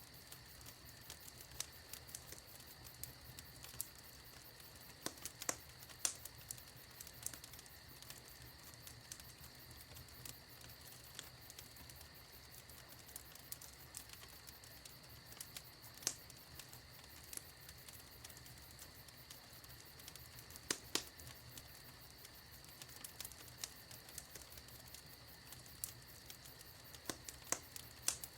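Fire burning in a fireplace, crackling: irregular sharp snaps and pops, a few louder ones, over a faint steady hiss.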